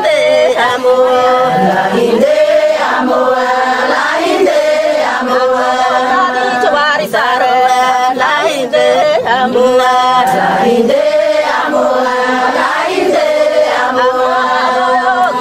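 A group of voices singing a chant-like song together, the short phrases repeating one after another.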